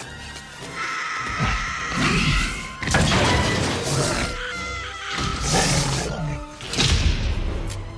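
Film soundtrack: an orchestral score under several loud velociraptor shrieks and crashing impacts, the loudest about three and seven seconds in.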